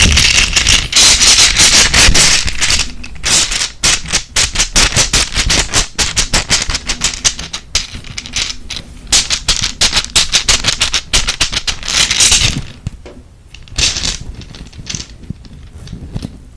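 ASMR tapping and scratching on an object: fast, irregular clicking taps, mixed with scratchy rubbing noise in the first few seconds and again about twelve seconds in. The taps grow sparser and quieter near the end.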